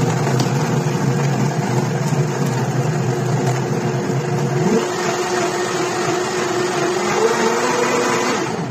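Blendtec blender motor running, blending a jar of ice and almond milk into a frappé, a steady loud whir; it cuts off just before the end.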